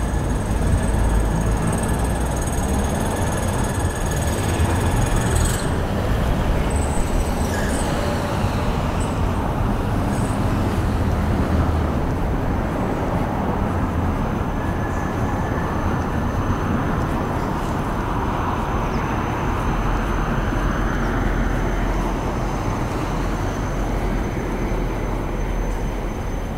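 Steady roar of road traffic and city noise from a busy street, with a thin high whine over it for the first five seconds or so.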